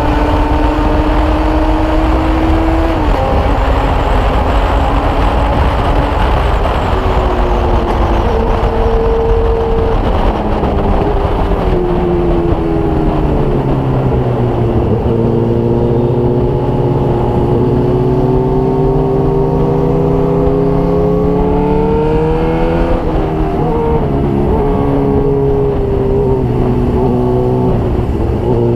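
Motorcycle engine and exhaust under way: the engine note holds, falls about a third of the way in, then climbs steadily under acceleration before dropping back and settling, over the rumble of wind on the microphone.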